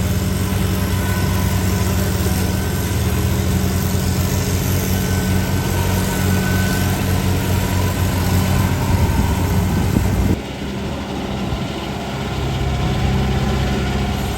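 Diesel engine of a rice combine harvester running steadily with a low drone. About ten seconds in, the sound changes abruptly and drops slightly in level, then carries on.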